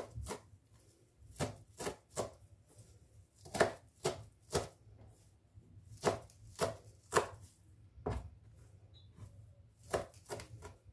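Kitchen knife chopping fresh parsley on a plastic cutting board: uneven knocks of the blade on the board, often two or three in quick succession, then a short pause. The coarsely chopped parsley is being minced finer.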